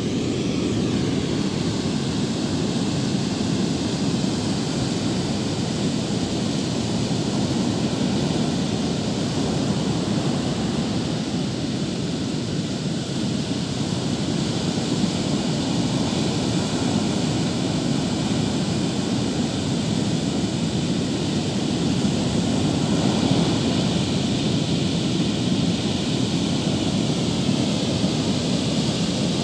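Steady wash of rough surf breaking on a sandy beach, with wind rumbling on the microphone.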